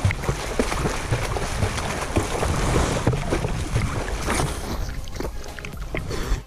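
A swimmer's arms and kicking feet splashing and churning the sea water close up, a dense run of splashes. The splashing thins out and gets quieter over the last couple of seconds as the swimming stops.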